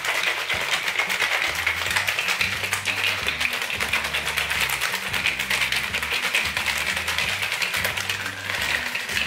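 Plastic shaker bottle with a drink mix inside being shaken hard and fast: a dense, continuous rattle, with background music and a bass line underneath.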